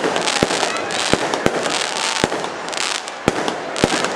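Fireworks going off: irregular sharp bangs, roughly two a second, over a continuous crackling hiss.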